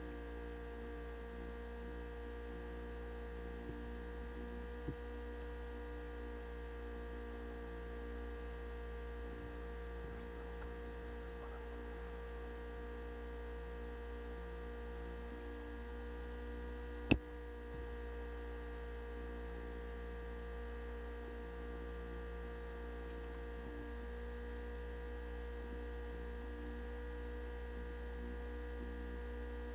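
Steady electrical hum made of several fixed tones, unchanging throughout, with a single sharp click about seventeen seconds in and a fainter tick near five seconds.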